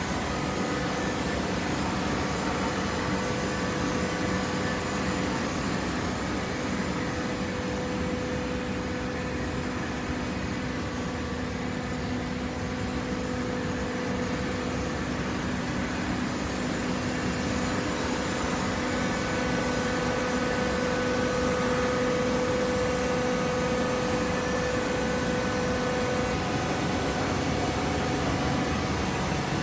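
Hydraulic power unit of a cardboard baler running: a steady motor-and-pump hum, its tone growing stronger about two-thirds of the way through.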